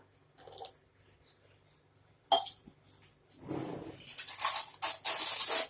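A glass clinks once, then a glassful of water is poured into a pot of spice powders, rushing and splashing for about two seconds before stopping just before the end.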